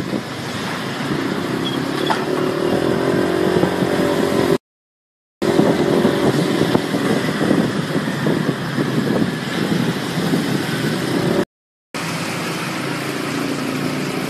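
Vehicle engines running in street traffic, in three short clips cut apart by brief total silences about four and a half and eleven and a half seconds in.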